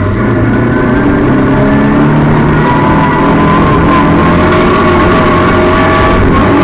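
Speedway race car's engine heard from inside the cockpit, running steadily at low speed with other race cars around it, its pitch rising and falling slightly.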